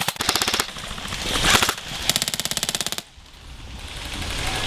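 Airsoft electric guns firing rapid full-auto bursts, a fast even rattle of shots. The bursts stop abruptly about three seconds in, followed by a steady hiss-like rushing noise.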